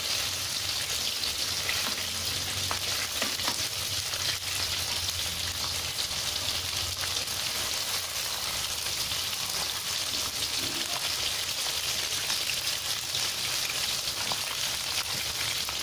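Breaded risoles deep-frying in hot oil in a wok: a steady, even sizzle of bubbling oil.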